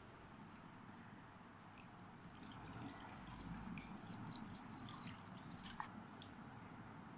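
Faint, scattered clicks and light scraping of a kitchen utensil against bowls as a flour mix is stirred and an egg is beaten.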